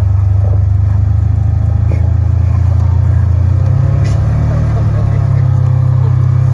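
Steady low drone of a car moving, with engine and road noise, its pitch shifting slightly about three and a half seconds in.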